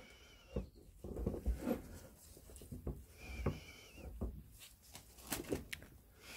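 Light knocks and clicks of Land Rover Series gearbox shafts and gears being handled with gloved hands on a wooden workbench, with plastic-bag rustling. Two faint, brief high squeaks come just after the start and about three and a half seconds in.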